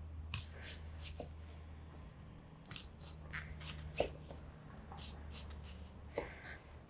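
Chef's knife cutting through a red onion on a wooden cutting board: faint, irregular crisp cuts and light taps of the blade on the board, the sharpest about four seconds in.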